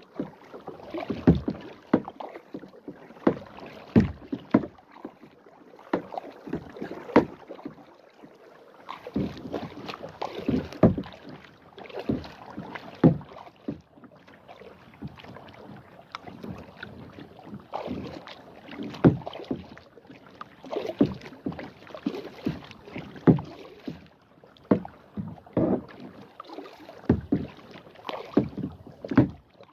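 Kayak being paddled: the paddle blades splash into the water roughly once a second, with sharp knocks against the plastic hull between the water sounds.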